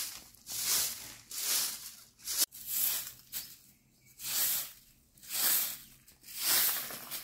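A grass hand broom sweeping a bare dirt yard: about seven swishing strokes, roughly one a second. A single sharp click comes about two and a half seconds in.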